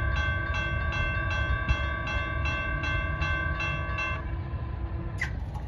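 Railroad crossing warning bell dinging about three times a second over a steady low rumble. It stops about four seconds in, as the crossing gates finish rising once the train has cleared.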